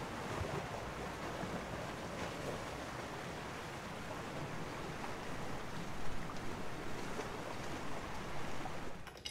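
Steady wash of sea surf on a rocky shore, with wind rumbling on the microphone. It cuts off suddenly near the end.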